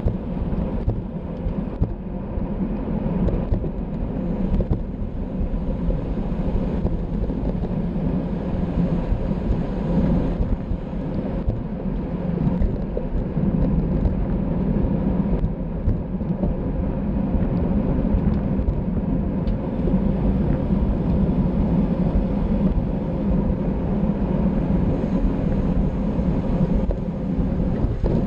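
Wind rushing over the microphone of a cyclist's camera at race speed: a loud, steady low rumble that swells and eases a little.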